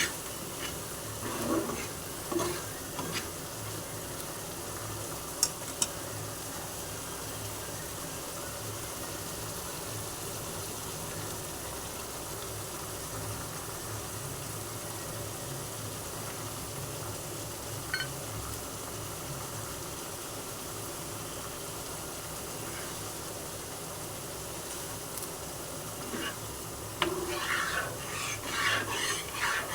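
Food frying steadily in a pan, with a spoon or spatula scraping and stirring against the pan about a second in and again near the end, and a couple of sharp clinks in between.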